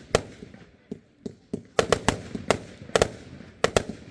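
Fireworks display going off: an irregular run of about a dozen sharp bangs, several in quick pairs, each trailing off in a short echo.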